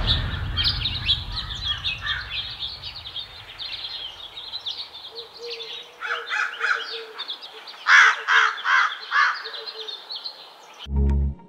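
Small birds chirping continuously, with a crow cawing: a few calls, then a louder series of four caws about two-thirds of the way in. A brief low sound cuts in just before the end.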